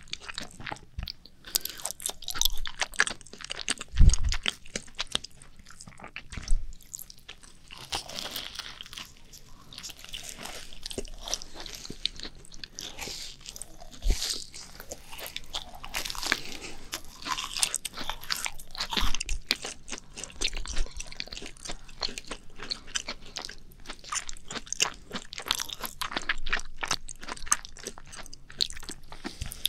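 Two people chewing macarons close to the microphone: dense, irregular crunching and crackling of the shells as they bite and chew, with a louder thump about four seconds in.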